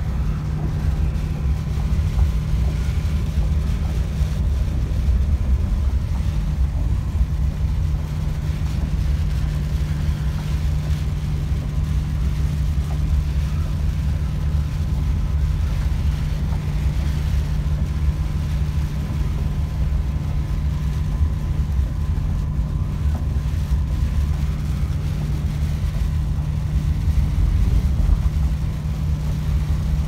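Van Hool coach travelling at speed, heard from inside the cabin: a steady low drone of engine and road noise with a constant low hum.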